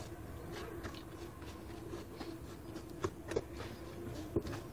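Wooden spatula faintly scraping and pressing soft cooked tamarind and dried plums against a steel strainer, with a few light clicks and taps.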